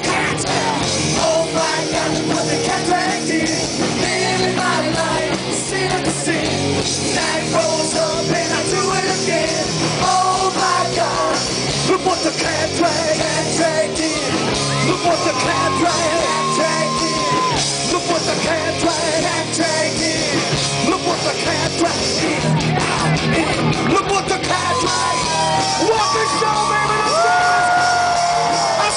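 Glam-metal band playing loud live rock: distorted electric guitars and drums with shouted, yelled singing over them.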